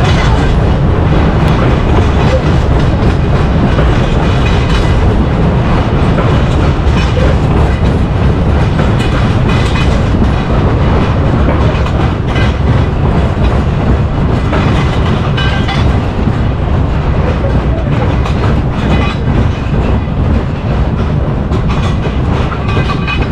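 Amusement-park ride in motion: a loud, steady rumble that keeps up without a break.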